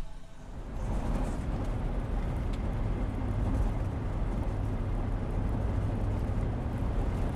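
Work van running, a steady low engine rumble and road noise that builds up over the first second and then holds even.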